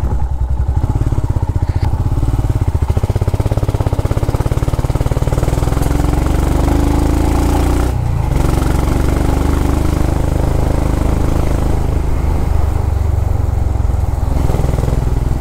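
Motorcycle engine running steadily under way, its firing pulses deep and even, with a brief dip about halfway through.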